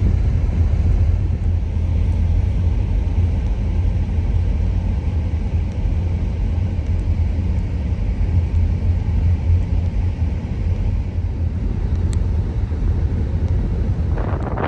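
Steady low rumble of a car driving, heard from inside. About half a second before the end, wind starts buffeting the microphone.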